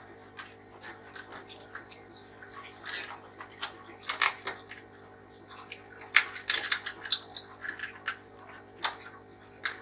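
Irregular plastic clicks and taps as the clips on a Fluval canister filter's hose fittings are worked loose and handled, over a steady low hum.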